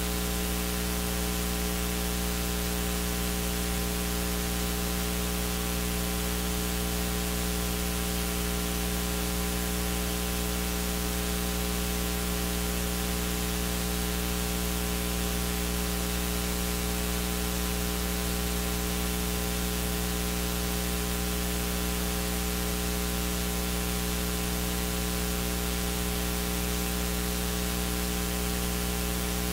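Steady electrical mains hum, a buzz with many evenly spaced overtones, under an even static hiss.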